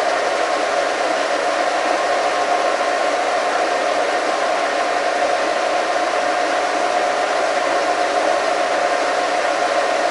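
Horizontal boring mill running steadily with its boring bar in a connecting rod bore: an even machine hum with a strong mid-pitched tone over a hiss.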